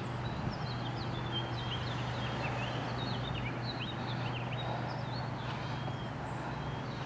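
Birds chirping in many short, quick notes throughout, over a steady low hum and a constant hiss of outdoor background noise.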